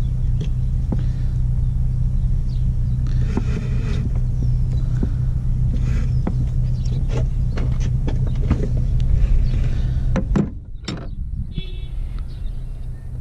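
A steady low hum, with scattered light metallic clicks and knocks of a wrench on the camshaft sprocket bolt as the sprocket is turned to line up the timing marks on a Chrysler 3.5L V6.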